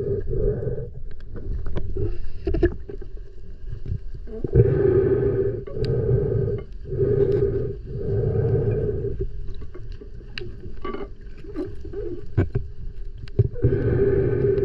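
Underwater sound picked up by a submerged camera: a steady pitched mechanical drone that swells and fades every second or so over a low rumble, with scattered sharp clicks.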